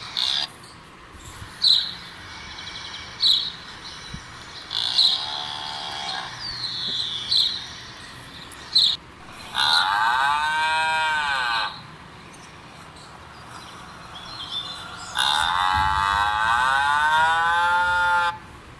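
A cow mooing twice in long, drawn-out moos, the second one longer, after a run of short high chirps.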